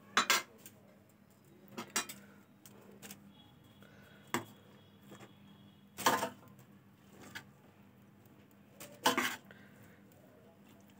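A metal slotted spoon scraping and clanking against the side of a metal cooking pot as cooked biryani rice is dug out. The clatters come one at a time, every one to three seconds, and are loudest near the start, about six seconds in and about nine seconds in.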